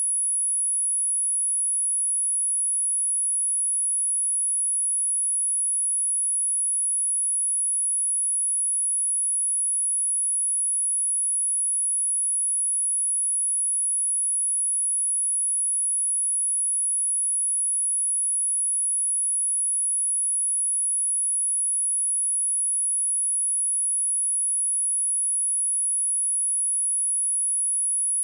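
A steady, high-pitched pure sine tone at 10256 Hz, held unchanged at one level throughout: a speaker test tone, also used to shake water and dust out of a speaker.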